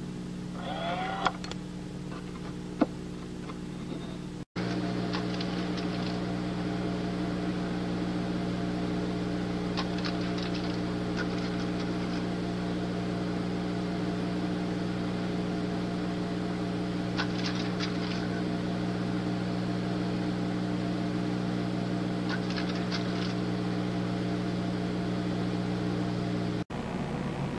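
Steady electrical hum made of several low tones stacked together, cutting out abruptly for a split second about four and a half seconds in and again near the end. A couple of faint clicks and a short sliding squeak come in the first few seconds.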